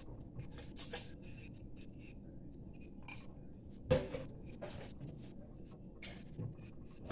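Quiet eating sounds from ramen noodles: slurping and chewing with many small, irregular clicks, including chopsticks tapping a glass bowl. A sharper knock comes about four seconds in.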